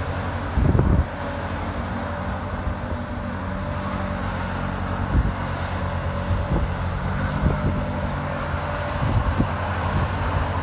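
Zamboni ice resurfacer's engine running steadily as the machine drives across the ice flooding the rink, a constant even hum.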